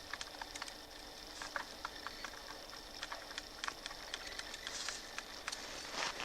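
Irregular light crackles and rustles, with a denser cluster near the end, over a steady faint hiss.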